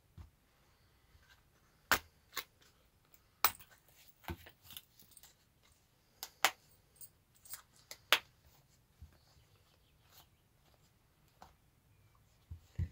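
Leather business card holders and business cards being handled: a dozen or so sharp clicks and taps, scattered irregularly, the sharpest a few seconds apart in the first two thirds.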